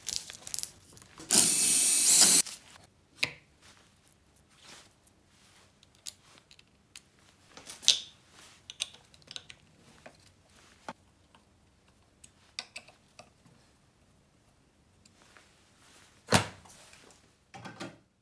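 A cordless drill-driver runs for about a second, then scattered small clicks and knocks of tools and parts being handled, with one sharper knock near the end.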